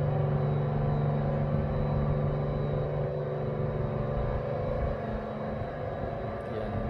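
Bascule bridge drive machinery running with a steady low mechanical hum and fainter higher whining tones as the bridge leaf lowers. The low hum eases off somewhat about five seconds in.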